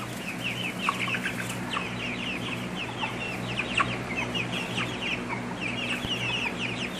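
A pen of young chickens, mostly Cornish Cross broilers, peeping and cheeping on and on, many short high chirps overlapping several times a second. A steady low hum runs underneath.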